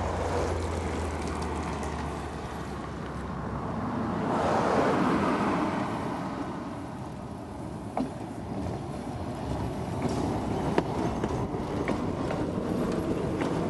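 Overhead-wire electric streetcar running along its track: a steady rumble of steel wheels and running gear on the rails, swelling a few seconds in, with a couple of sharp clicks later on.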